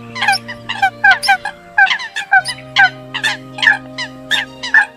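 Eurasian coots calling: a rapid, unbroken series of short, sharp calls, about four a second, over a steady low drone.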